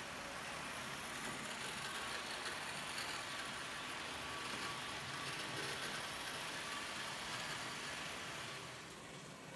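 H0-scale model passenger train rolling past on the track: a steady rolling hiss of wheels on rail, with a faint whine, that falls away near the end as the train goes by.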